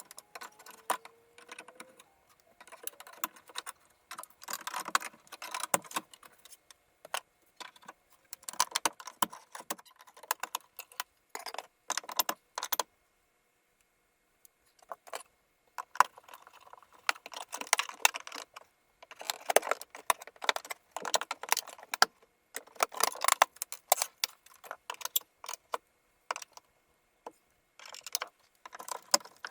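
Irregular bursts of light clattering and rattling from demolition debris being handled, with a pause of about two seconds near the middle.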